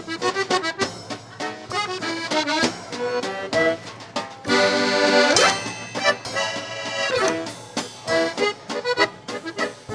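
Background music: a lively tune of quick short notes, with one long held chord about halfway through.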